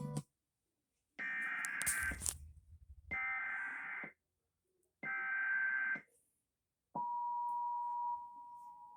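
Emergency Alert System warning opening: three SAME digital header bursts, each about a second long and about a second apart. About seven seconds in, the steady two-tone EAS attention signal (853 and 960 Hz) starts and holds.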